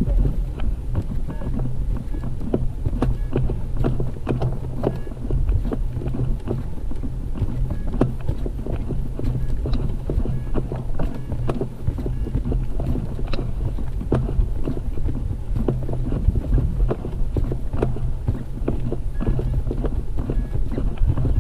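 Wind buffeting the microphone as a steady low rumble, with many irregular quick clicks and knocks, several a second.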